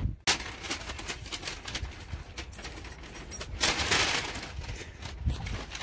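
A plastic fork scraping and clicking against a paper food bowl. There are many small sharp clicks, and a louder scraping rustle about four seconds in.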